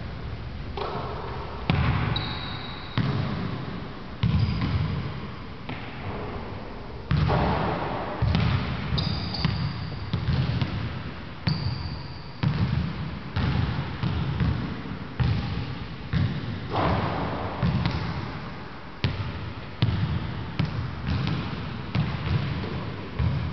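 Basketball bouncing on a hardwood gym floor, about once a second at an uneven pace, each bounce ringing on in the large hall. A few short high squeaks come in among the bounces.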